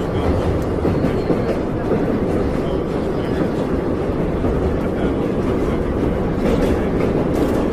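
Subway train running, heard from inside the car: a steady low rumble of wheels and running gear on the rails.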